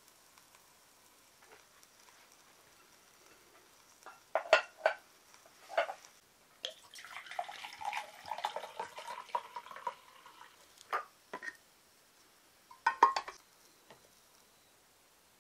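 Sake poured from a glass bottle into a small metal cup: about three seconds of splashing pour, rising a little in pitch as the cup fills. Sharp clinks and taps of tableware come before it and twice after it, the loudest about a second before the pour and near the end.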